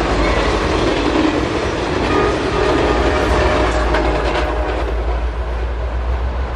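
Amtrak 75 passenger train passing close by: the last coaches and the rear power unit run by, their wheels clattering on the rails. The train noise eases slowly as it pulls away.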